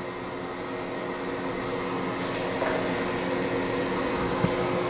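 Steady hum of an electric fan running, with a few steady tones in it. A single soft knock about four and a half seconds in.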